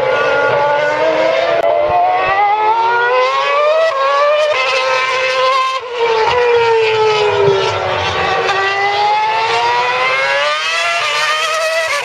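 2012 Formula One cars' 2.4-litre V8 engines running at high revs as the cars pass through corners and along the straight. The pitch climbs and falls in long glides as they accelerate, lift and go by, with a brief break about six seconds in.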